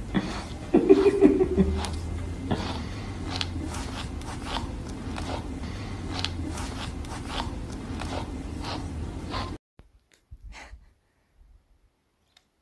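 Husky giving a short, low vocal bork about a second in, followed by a run of short breathy snuffles and rustling as a hand pets it. The sound cuts off abruptly near the end.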